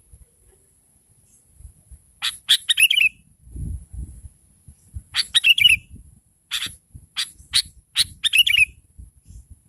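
Sooty-headed bulbul calling in bursts: sharp chirps and short bubbly phrases, repeated in about four groups.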